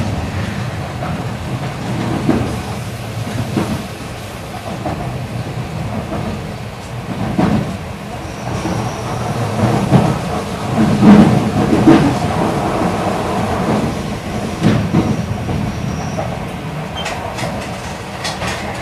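E8-series Shinkansen train running, heard inside the passenger car: a steady rumble of wheels on rail with irregular knocks, loudest about halfway through. A faint, thin high tone comes in briefly twice.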